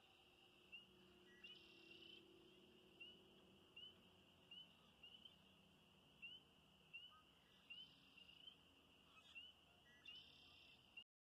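Faint chorus of spring peepers: a steady high ringing with single short rising peeps standing out about every half second to second. The sound cuts off abruptly near the end.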